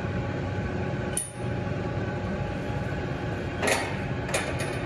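A few light metallic clicks and clinks as a small level is handled against a stainless steel pipe, one about a second in and three close together near the end, over a steady shop hum.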